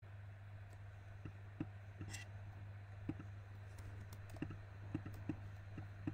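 Faint, irregular clicks of a computer mouse and keyboard, a dozen or so, over a steady low hum.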